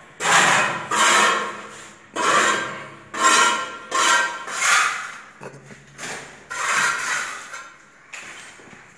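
Rough scraping strokes on a cement floor, about one a second and somewhat irregular, each starting sharply and fading, the last ones weaker.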